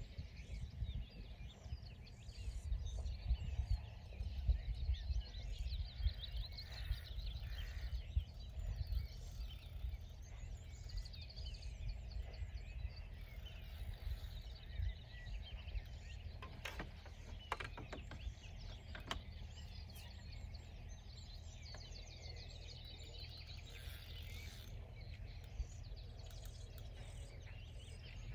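Outdoor ambience by a lake: a steady low wind rumble on the microphone, with small birds chirping and singing in the background. A few light clicks come about two-thirds of the way through.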